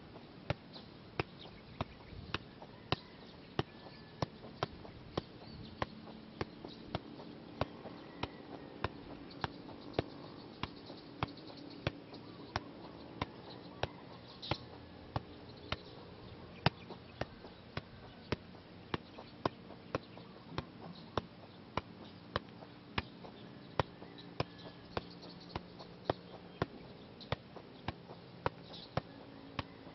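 Soccer ball being juggled: a steady run of short thuds, about one and a half a second, as the ball is kept up off the foot and thigh.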